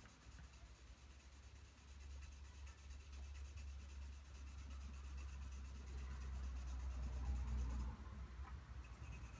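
Graphite pencil shading on drawing paper: a soft, continuous scratching that grows louder over several seconds, over a low rumble, both stopping about eight seconds in.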